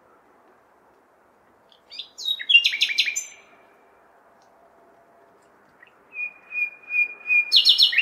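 Nightingale singing: a phrase of rapid repeated notes about two seconds in, then after a pause a long held whistle that breaks into a loud, fast trill near the end. A faint hum of city background noise lies underneath.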